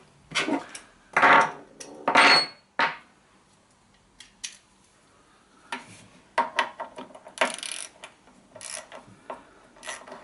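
Steel sockets, extension bar and ratchet clinking and clattering against each other and the wooden bench as a 10 mm socket is picked out and fitted, a few sharp clanks in the first three seconds, one ringing briefly. After about six seconds a run of lighter clicks and a short rasp follow as the ratchet is set on the carburettor's fuel-cup nut.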